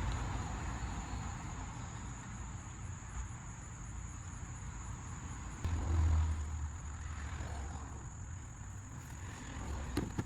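Motor oil pouring slowly from a jug through a funnel into the engine's oil filler neck, a soft steady rush. There is a low bump about six seconds in.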